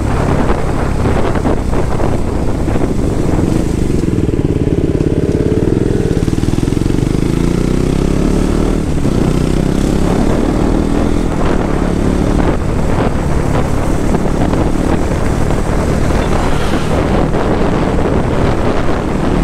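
Motorcycle engine running while the bike is ridden, heard from the rider's seat. The engine note climbs for a few seconds about four seconds in, then drops back as the throttle is eased.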